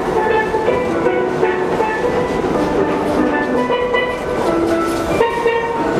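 Steel pan music, a quick melody of short ringing notes, over the steady rumble of a subway train running alongside the platform.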